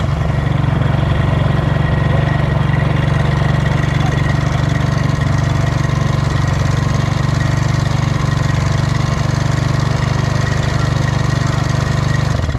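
Honda TRX450R's single-cylinder four-stroke engine running steadily at idle, cutting off abruptly near the end. The riders suspect the noise comes from a loose clutch screw letting the clutch basket rattle.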